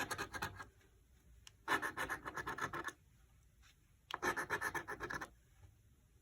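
Scratch-off lottery ticket being scratched, its coating scraped off in three short bursts of quick strokes with pauses between.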